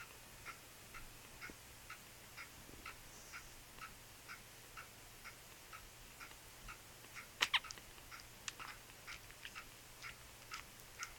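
A clock ticking quietly and evenly, about two ticks a second. About seven seconds in, two short, sharp, louder squeaks from the nursing puppies stand out, followed by a few irregular clicks.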